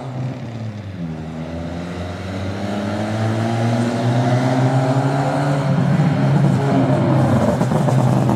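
2010 Toyota Corolla with an HKS aftermarket exhaust driving up, its engine note steady and growing louder as the car approaches.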